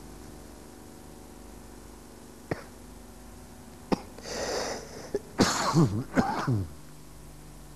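A person coughing and clearing their throat in a few rough bursts near the end, just after a hissing breath, over a steady low hum with a few sharp clicks earlier on.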